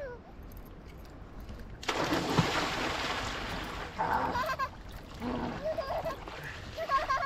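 Water splashing loudly. It starts suddenly about two seconds in and goes on for about two seconds.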